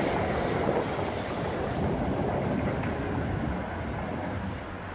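Tram rolling along the rails, slowly getting quieter as it moves away.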